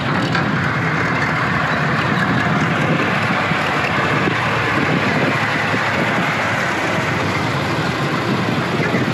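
Steady running noise of a motor vehicle: an even rushing hiss over a low rumble, with no distinct engine note and no change in pitch.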